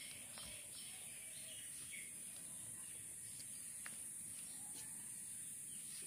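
Faint outdoor ambience with small birds chirping now and then over a steady high hiss.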